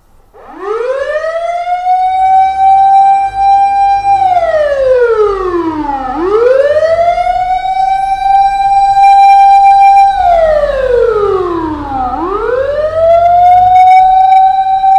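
A siren wailing in slow cycles. Its pitch rises quickly, holds steady for a few seconds, then slides down, and it climbs again about every six seconds. It starts about half a second in and rises three times.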